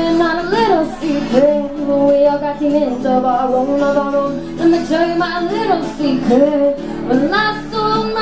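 A woman singing with long, wavering held notes, accompanied by her own acoustic guitar.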